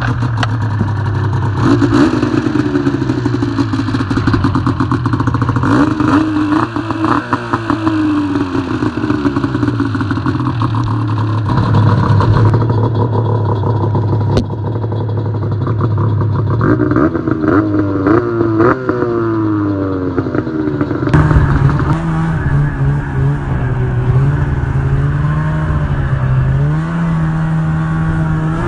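1999 Ski-Doo MXZ 500 snowmobile's two-stroke twin engine running through a newly fitted aftermarket exhaust can, idling with the throttle blipped again and again so the revs rise and fall back.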